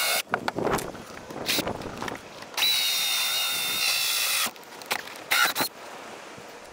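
Electric hand drill with a hole saw cutting holes in the boat's wooden deck. It runs in short trigger blips and one steady whine of about two seconds starting a little after halfway in.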